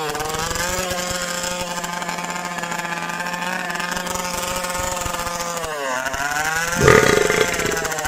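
Small two-stroke petrol engine of a radio-controlled powerboat running at a steady high pitch. Near the end the pitch sags briefly and then comes a short, louder, rougher burst.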